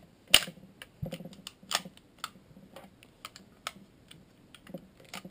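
Hi-Capa airsoft pistol's slide being fitted back onto the frame and worked by hand. It gives a run of irregular sharp clicks and clacks, the loudest about a third of a second in.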